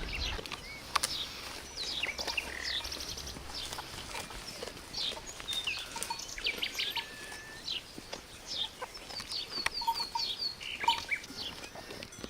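Birds chirping: many short, high chirps, many falling in pitch, some in quick runs, with a couple of sharp clicks.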